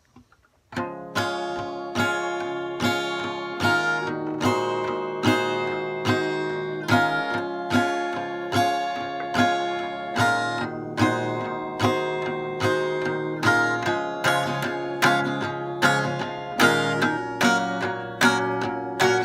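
Acoustic guitar strummed in a steady rhythm, starting about a second in: the instrumental opening of a song, with no voice yet.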